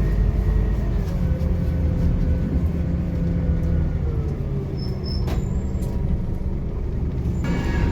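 Heard from inside the cabin, a Scania K270UB single-decker bus's engine and drivetrain run with a steady low rumble and a whine. The whine holds its pitch, then falls away about four seconds in as the bus comes off the power. A couple of sharp rattles come about five seconds in.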